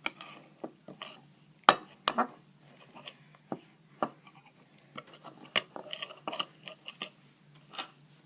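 A knife stirring a thick paste in a bowl, the blade clinking and scraping against the bowl in irregular knocks, the loudest a couple of seconds in.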